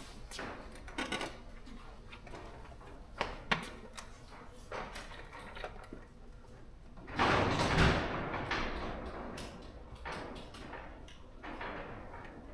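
Handling noises: scattered clicks and knocks, then a louder scraping, rustling burst lasting about a second, a little past the middle.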